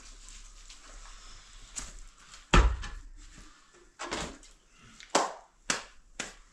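Thumps and knocks as things are handled on a rubble floor: one heavy thud about two and a half seconds in, then four lighter, sharp knocks spaced roughly half a second to a second apart.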